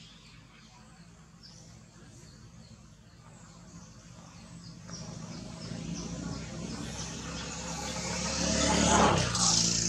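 A motor vehicle approaches and passes: its engine hum grows louder from about halfway through to a peak near the end, then starts to fade. Before it comes close, a run of short, high, falling chirps repeats a few times a second.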